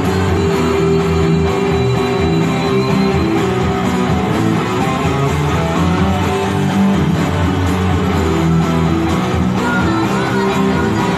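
Electric guitar played through an amplified tone, lead lines high on the neck, over a full-band Japanese pop-rock backing track with bass.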